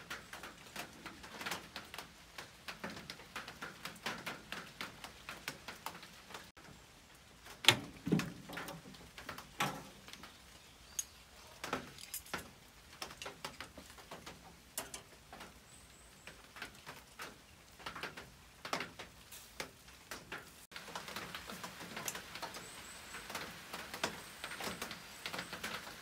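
Meat and charcoal crackling on a smoking charcoal barrel grill: irregular pops and ticks, with one sharp clack about eight seconds in. A steadier hiss comes in near the end, and faint bird chirps can be heard.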